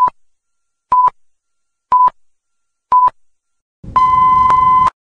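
Film-leader countdown sound effect: four short high beeps one second apart, then a single long beep of about a second with film crackle beneath it.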